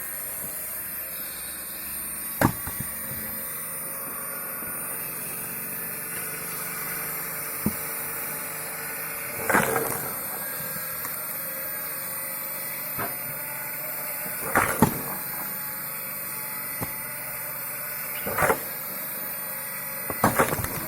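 Firewood being split: about eight sharp, irregularly spaced knocks and cracks of logs, some with a short ringing tail, over a steady background hum.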